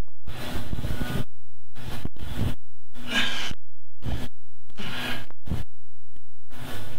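A man's heavy breathing while exercising: a string of short, loud breaths at irregular spacing, roughly one a second, each cut off sharply.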